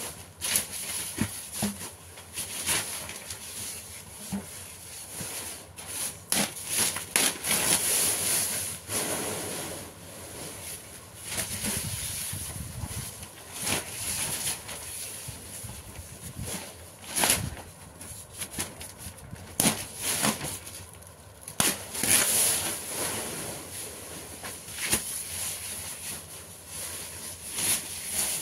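Paper rustling and crinkling in irregular crackles as sheets are handled, torn and folded by hand.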